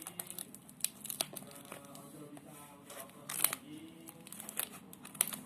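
Plastic packaging being handled and opened: crinkling and tearing with scattered sharp clicks, over faint background music.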